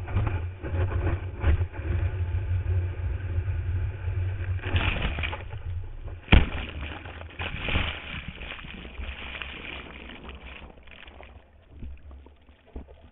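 Wind buffeting and whitewater rushing over a camera mounted on a surfboard's nose as the board rides through a breaking wave, with a louder rush a little under five seconds in and a sharp knock just after six seconds. The sound fades and dulls near the end as the board goes into the foam.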